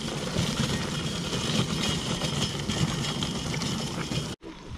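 A wheeled cart pushed along a gravel road, its wheels rolling and crunching steadily together with footsteps; the noise cuts off abruptly near the end.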